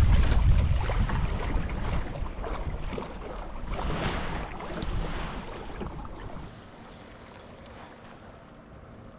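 Wind buffeting the microphone, a heavy low rumble with gusting hiss that dies down about six and a half seconds in, leaving a quieter steady rush of wind.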